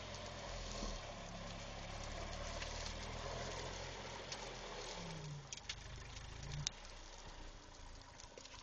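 Old Hough HE wheel loader's engine running at a low, steady note, with a few sharp clicks; a sharp knock comes about two-thirds of the way through, after which the engine note grows quieter.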